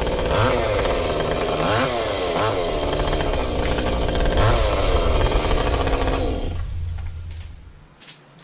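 Gas chainsaw running, its engine pitch rising and falling over and over as it is revved and loaded. It cuts out about six and a half seconds in and dies away near the end.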